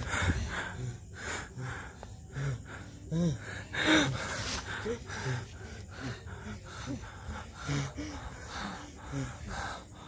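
A person gasping and breathing hard: short voiced gasps, a little more than one a second, with breathy noise between them and a louder gasp about four seconds in.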